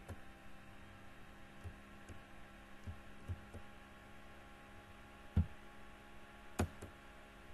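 Steady low electrical hum with a few faint clicks and knocks scattered through it, the loudest about five and a half seconds in and another a second later.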